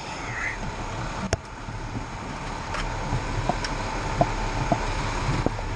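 Fire engine's diesel engine idling, heard from inside the cab as a steady low rumble, with a sharp click about a second in and a few lighter clicks and knocks after.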